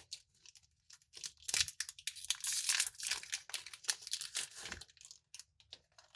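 Plastic snack wrapper crinkling and tearing as a Twix Crispy Rolls pack is handled and opened, an irregular run of rustles that is busiest in the middle and dies away near the end.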